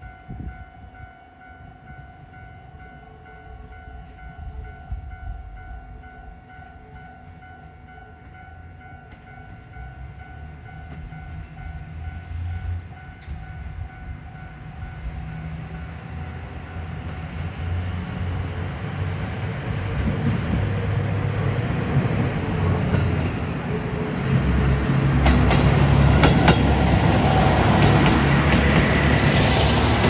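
Level-crossing warning bell ringing steadily as a diesel railcar approaches. The train's engine and wheel noise swell from faint to loud, with wheels clattering as it reaches the crossing near the end.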